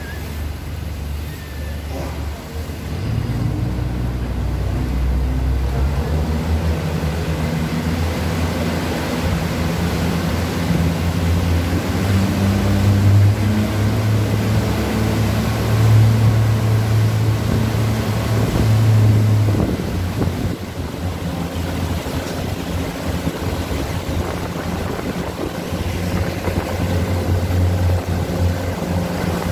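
Tour motorboat's engine running under way, swelling a few seconds in, dropping back about twenty seconds in and picking up again near the end, over the rush of churning water and wake.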